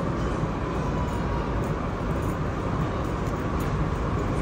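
Steady low rumbling background noise with a light hiss and no distinct events.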